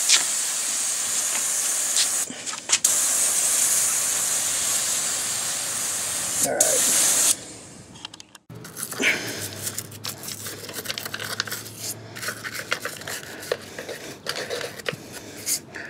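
Aerosol can of engine degreaser spraying: two long bursts of hiss with a short break between them, stopping about seven seconds in. Faint clicks and taps follow.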